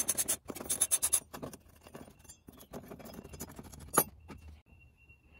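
Metal hand tool clicking and clinking against screws as the two screws holding an ATV's footwell bracket are backed out. There is a quick run of clicks in the first second, softer scattered clicks after, and a single sharp click about four seconds in.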